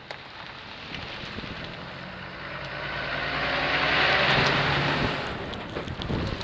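A motor vehicle passing by, its engine and tyre noise swelling to a peak about four seconds in and then fading. A few sharp clicks near the end.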